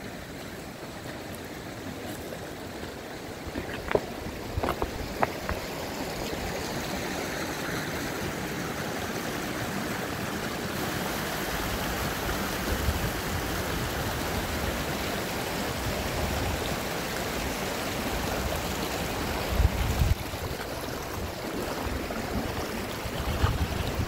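Wind rushing across an open mountainside, with gusts buffeting the microphone in low rumbles near the end. A few sharp clicks of loose stones underfoot come a few seconds in.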